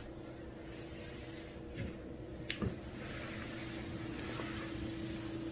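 Indoor room tone: a steady low hum, with a few faint clicks about two seconds in.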